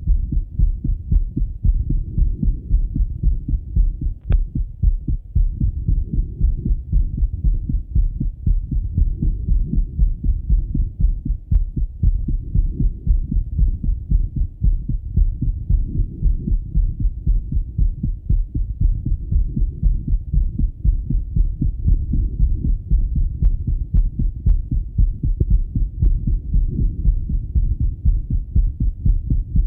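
A man's heartbeat heard through a Littmann stethoscope chestpiece after a run: a steady, continuous train of deep low thumps, the lub-dub of the heart beating hard from exertion.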